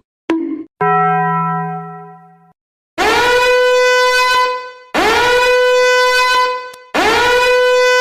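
Three identical long horn-like blasts, each swooping up in pitch at the start and then holding one steady note for about two seconds. A shorter, lower buzzing tone comes before them.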